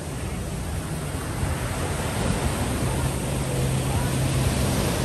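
Sea waves breaking and washing over the shore, a steady rush of surf that grows a little louder in the first couple of seconds, over a low steady hum.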